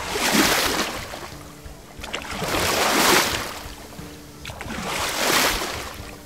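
Sea waves washing in three surges, each swelling and fading over about two seconds, over faint steady background music.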